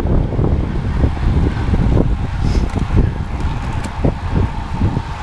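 Wind buffeting the microphone of a camera on a road bike riding at race speed: a loud, heavy low rumble that surges irregularly, with tyre and road noise mixed in.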